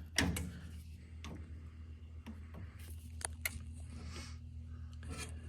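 Hand tools being handled: scattered short clicks, knocks and scrapes over a steady low hum.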